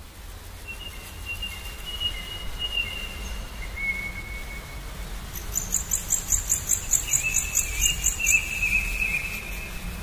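Birds whistling and an insect chirping in a rapid high pulse, about five chirps a second, from about halfway through, over a low rumble; the sound fades in at the start.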